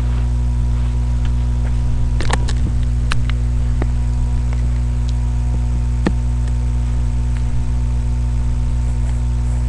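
Steady electrical mains hum, low and unchanging, with a few faint clicks about two to three seconds in and once more near the middle.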